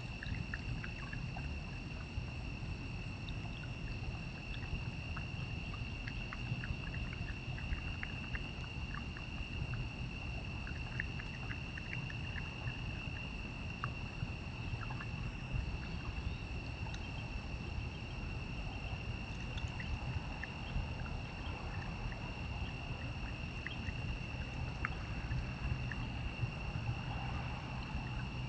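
Steady chorus of night insects, a continuous high trill, over a low rumble, with faint scattered ticks.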